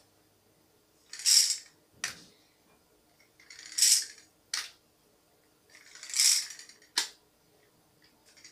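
A yo-yo being thrown down and brought back up three times, each throw a short whirring swish followed by a sharp click.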